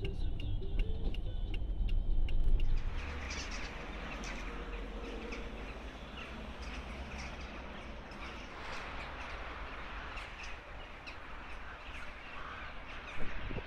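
Car road rumble from inside a moving car, which cuts off about three seconds in. Open-air ambience follows: a steady hiss with faint, scattered bird chirps. A single knock comes near the end.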